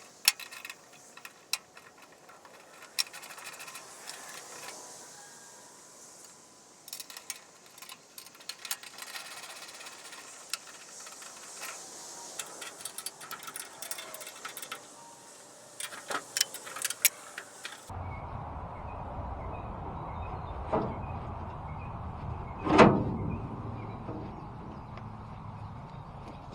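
Scattered metal clicks and clanks of hand-tool work on a tractor, likely its fender bolts. About eighteen seconds in the sound cuts abruptly to a steady low rumble, with one loud thud near the end.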